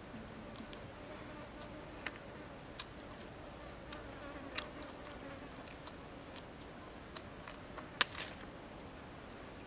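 A flying insect buzzing close by, its hum wavering in pitch for the first several seconds, over scattered sharp mouth clicks and smacks of someone chewing food; the loudest click comes near the end.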